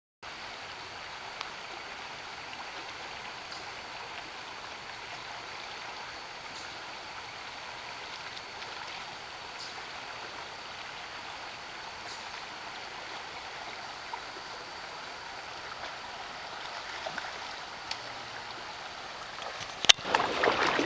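Shallow stream running over a rocky riffle: a steady rushing of water. Near the end there is a sharp click, and the rushing grows louder and rougher.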